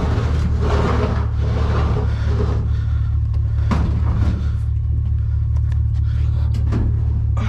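Vehicle driving, a steady low rumble of engine and road noise, with a few short knocks.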